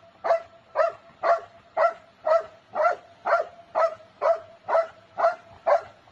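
A dog barking over and over in an even rhythm, about two short barks a second.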